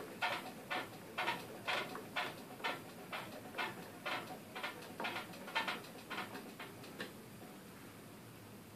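Hand screwdriver driving screws through a tweeter's mounting plate into a carpet-covered speaker box: a run of short, sharp clicks and creaks, about two a second, stopping about seven seconds in.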